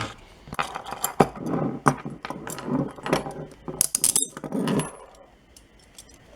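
A pair of metal handcuffs and their key being handled: a run of sharp metal clicks and rattling, with a brief bright metallic jingle about four seconds in, settling to quiet near the end.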